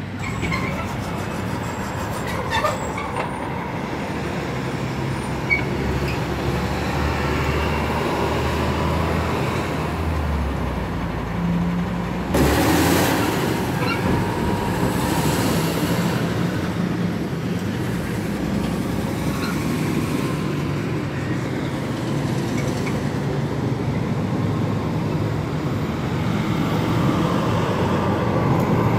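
Heavy truck engine running steadily in street traffic, with a brief loud hiss about twelve seconds in.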